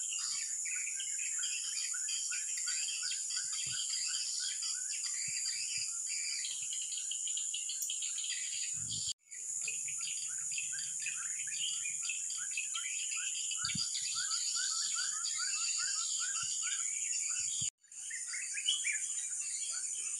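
Outdoor chorus of insects and birds: a steady high insect drone with rows of quick, repeated chirps beneath it. The sound cuts out briefly twice.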